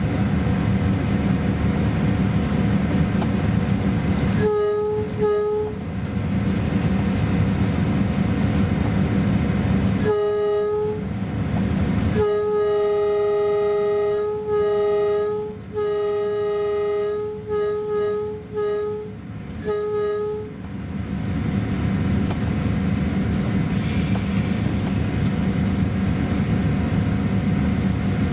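Train horn sounding a series of blasts over the steady rumble of the train running on the rails: two short toots about five seconds in, one more about ten seconds in, then a long blast followed by a string of shorter blasts that ends about twenty seconds in.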